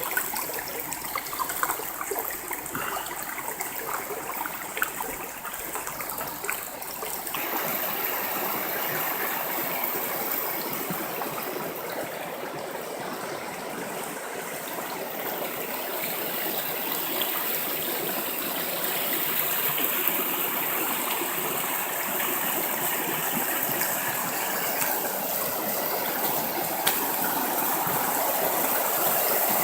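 River water flowing with a steady rushing noise, with scattered clicks in the first several seconds, slowly getting louder towards the end.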